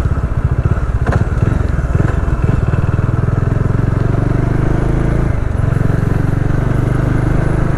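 Motorcycle engine running under way, over a steady rush of road and wind noise. The engine note dips briefly about five seconds in, then picks up again.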